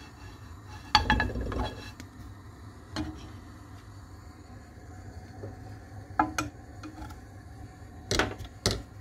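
Frying pan knocking against a gas stove's metal grate as it is moved: a loud clank about a second in with a short rattle after it, single knocks around three and six seconds, and two clanks close together near the end, over a steady low hum.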